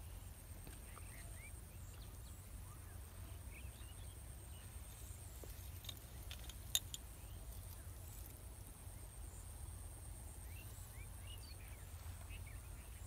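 Faint rural ambience: a steady low rumble under scattered short bird chirps and a thin high steady tone. One sharp click about two-thirds of the way through.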